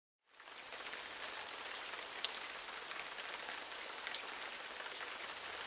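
Rain sound effect: a steady hiss of rain on a surface with scattered drop ticks, starting abruptly just after the start.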